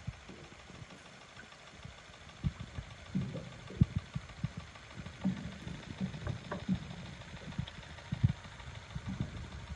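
Irregular soft low thumps and knocks over a faint steady hiss, starting about two and a half seconds in, with the strongest near the middle and again near the end.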